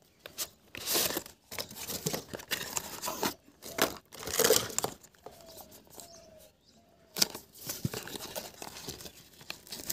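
Cardboard and paper packaging being handled: a retail box slid out of a corrugated cardboard sleeve, then its flap opened and a paper insert pulled out, giving irregular rustling and scraping with a quieter stretch about halfway through.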